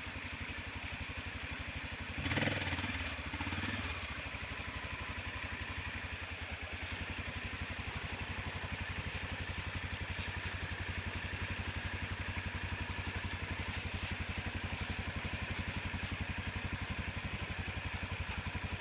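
Off-road motorcycle engine idling steadily with an even pulse, with a brief louder burst about two seconds in.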